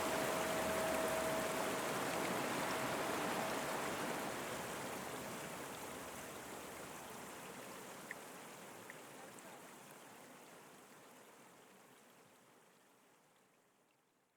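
Steady rushing of running water fading slowly out to silence. A bell's lingering tone dies away over the first few seconds.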